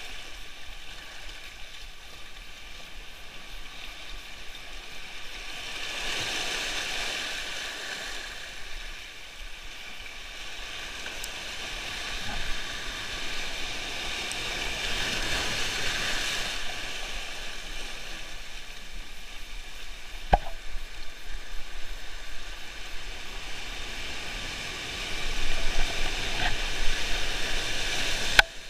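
Surf washing over a shallow shore, a steady hiss that swells and ebbs every few seconds. A few sharp clicks near the end.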